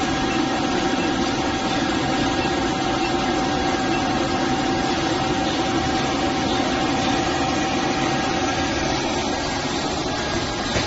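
Toilet paper roll band saw cutting machine running steadily, a continuous mechanical hum with a thin steady whine that fades out about nine seconds in.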